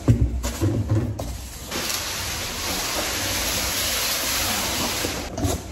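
Cardboard moving box pushed across a wooden parquet floor, a steady scraping hiss that lasts about three and a half seconds and stops suddenly. A few knocks from handling the box come before it.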